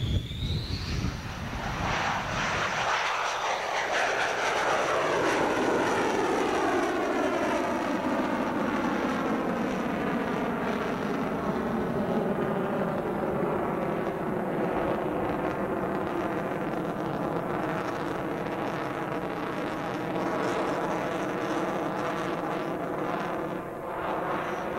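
Grumman F-14 Tomcat's twin jet engines at takeoff power as it climbs away, a loud steady roar with a slow downward-sweeping whoosh through it as the jet recedes.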